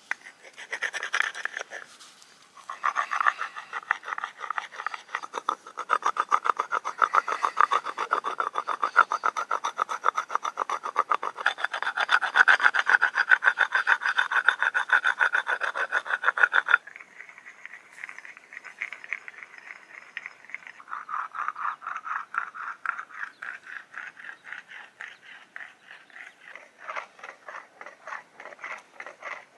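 Stone on antler: quick back-and-forth scraping strokes of a stone flake shaping a piece of antler, a dry rasping rub. About two-thirds of the way through it cuts off and is replaced by quieter, similar rhythmic grinding strokes of something being rubbed on a sandstone rock slab.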